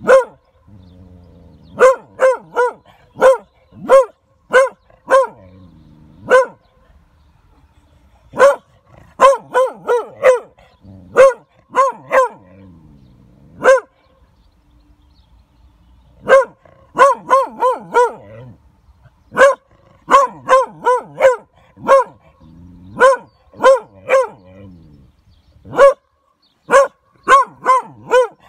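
Beagle hound barking at point at a tortoise it has found, the bay of a hound holding stationary quarry. The sharp barks come in quick runs of several, broken by short pauses.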